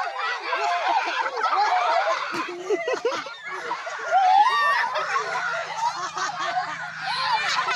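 Several children's voices at once, chattering, calling out and laughing while they ride a swing. A faint steady low hum comes in about five seconds in.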